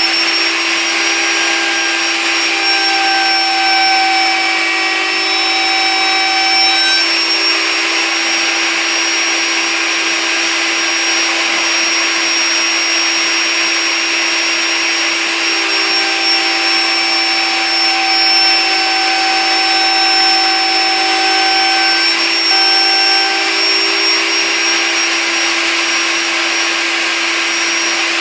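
Router in a router table, running at full speed with a 45-degree chamfer bit while the edges of a whitewood block are chamfered. It makes a steady high-pitched whine.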